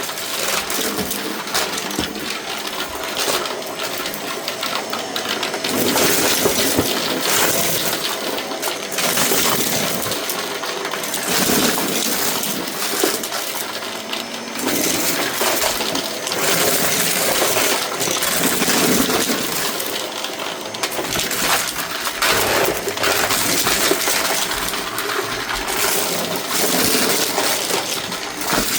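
White Shark vacuum cleaner running over a rug, with dense rattling and clicking as hard debris is sucked up through it.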